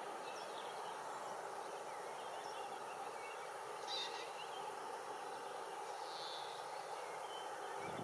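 Steady outdoor background hiss with faint, scattered bird chirps, and two brief, louder high calls about four and six seconds in.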